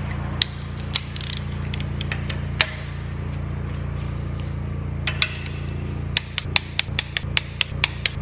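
Ratchet wrench clicking on the cylinder-head bolts of an Audi 2.5 TFSI five-cylinder during angle tightening. A few scattered clicks come first, then from about six seconds in a steady run of about four clicks a second, over a low steady hum.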